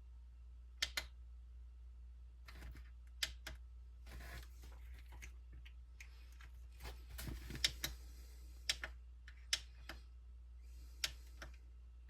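Scattered sharp clicks and light rustling from hands handling the small plastic parts and wire connectors of an Axial SCX24 RC crawler, over a low steady hum.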